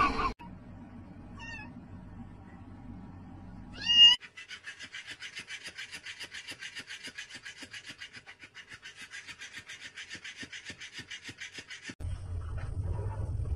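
A short, high, rising animal cry about four seconds in. Then an electric flopping-fish cat toy runs for about eight seconds, its motor buzzing in quick, even flaps of about seven a second.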